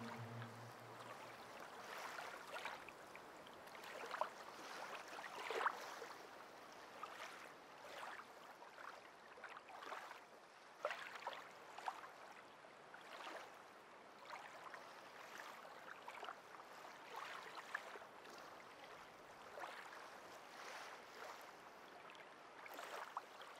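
Faint small waves lapping and splashing at the shoreline, an uneven run of soft washes and little splashes.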